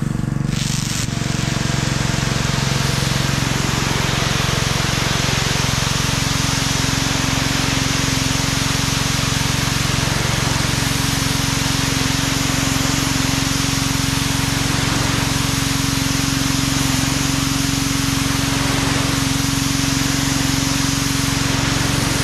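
Pressure washer running steadily, its motor and pump giving a constant low hum, with the loud hiss of the high-pressure water jet starting about a second in as it blasts moss and grime off the body of a 1977 GMC Suburban.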